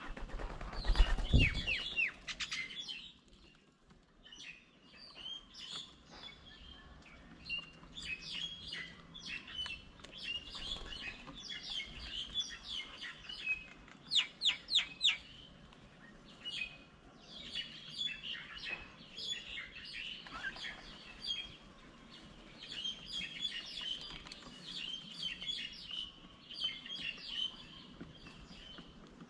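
Wild birds chirping and calling throughout, with a short loud low rush mixed with falling calls in the first two seconds, a run of four loud, quick falling whistles about halfway through, and a stretch of fast chattering near the end.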